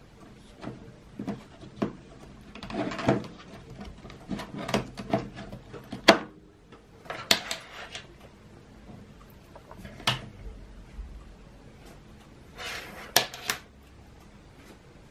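Irregular clicks, knocks and short rustles of handling, objects and the camera being moved about on a desk, in several clusters with quiet gaps between.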